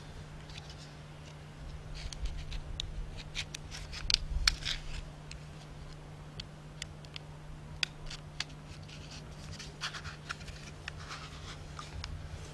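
Small sharp metallic clicks and scrapes as a hand tool works at a crude hand-made sheet-metal mezuzah case, coming in irregular clusters, busiest a couple of seconds in and again about ten seconds in.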